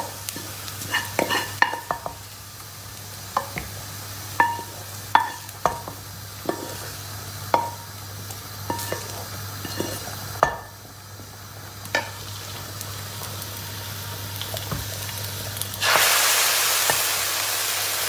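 Wooden spoon knocking and scraping against the rim of a frying pan as fried onions with tomato paste and pepper flakes are scraped into a pot of soup: sharp, irregular taps. About two seconds before the end, a loud steady sizzle starts as soup from a ladle hits the hot, oily pan.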